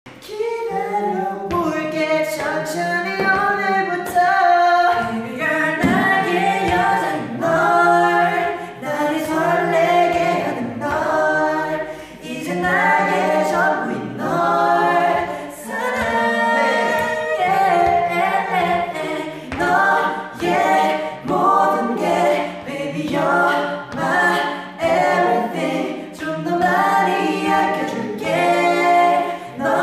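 A group of voices singing a cappella in harmony, in phrases a couple of seconds long with short breaks between.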